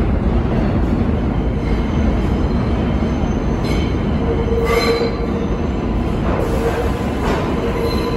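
New York City subway R142A train approaching through the tunnel into the station: a loud, steady rumble of wheels on rail with a constant hum. Short high squeals from the wheels come in several brief bursts from about halfway through.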